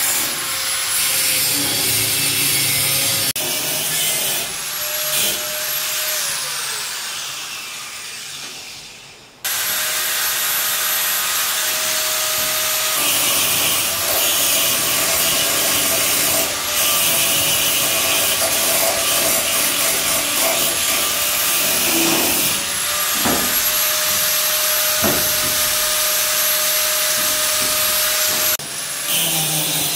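Electric angle grinder running and grinding, then released so that its whine falls as it winds down. It starts again abruptly about nine and a half seconds in and runs steadily with a few knocks, dipping briefly near the end.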